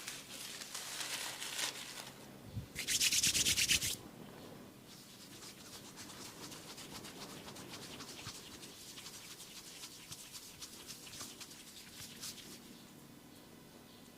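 Hands rubbing and scratching through hair and over the scalp close to the microphone. Loud rubbing at the start, a louder burst of fast strokes about three seconds in, then softer, steady rubbing that fades away near the end.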